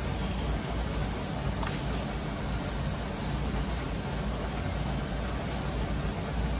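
Pieces of fresh mutton and fat sizzling in hot ghee in a large metal karahi, a steady hiss over a low rumble, at the start of frying.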